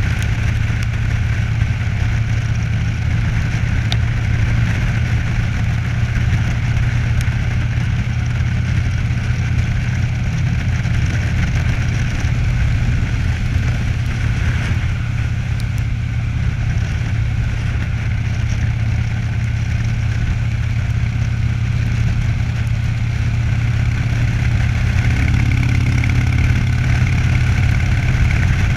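Cruiser motorcycle engine running at a steady cruise on the open road, with wind noise over the microphone, getting slightly louder in the last few seconds.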